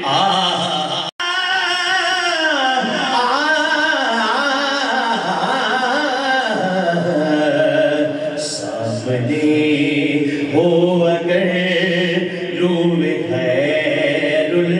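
A man singing an Urdu naat into a microphone, holding long wavering melismatic notes. The sound cuts out completely for an instant about a second in.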